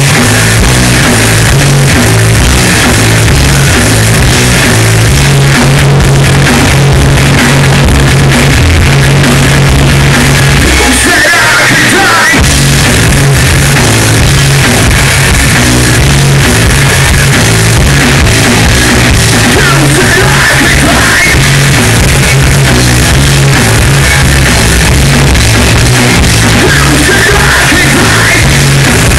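Live hard rock band playing loud: electric guitars, bass and drum kit with vocals. About eleven seconds in the bass and drums drop out for a moment, then the full band comes back in.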